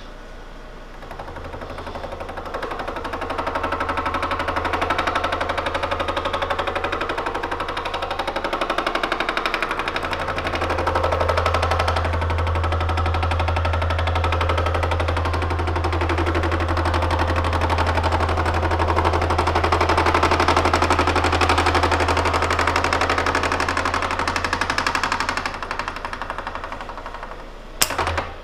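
Milling machine boring head with a tool bit cutting through a silicon-bronze brazed cast iron bore: a fast, even hammering chatter over the spindle's low hum, easing briefly about a third of the way in and fading near the end, followed by a sharp click. The tool bit is beating on hard spots where cast iron has blended into the bronze weld.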